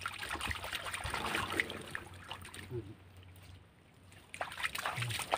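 Hands splashing and groping through shallow muddy water, with small sloshes and trickling, busiest in the first two seconds and again near the end.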